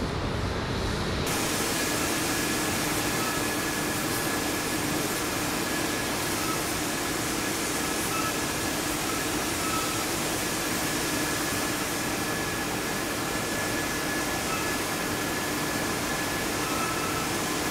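Oil refinery process machinery (pumps and pipework) running: a steady, even hiss with a constant hum and a steady higher tone, while short higher tones come and go. A deep rumble cuts off abruptly about a second in, where the steady machine noise begins.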